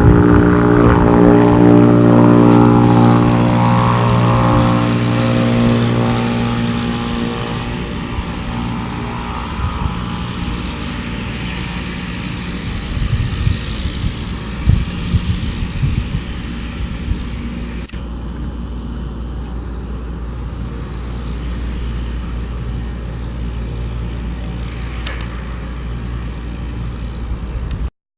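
Cessna 208 Grand Caravan's turboprop engine and propeller running. Its steady propeller tones fade over several seconds as the aircraft moves away, leaving a steady distant rumble.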